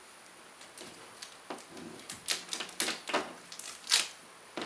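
Hands pressing and patting a sheet of paper with double-sided tape against a wall: a faint string of short, irregular taps and paper rustles.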